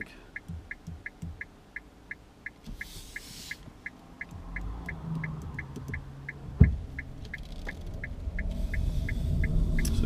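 Car turn-signal indicator ticking evenly, about three ticks a second, inside a Nissan Leaf's cabin while it waits to pull out. Passing traffic hisses by twice, there is one sharp thump about two-thirds of the way in, and near the end a low road rumble builds as the car pulls away.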